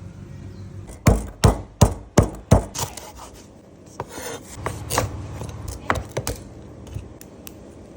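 Knife chopping on a cutting board: five hard strokes in quick succession about a second in, then a few lighter knocks and taps.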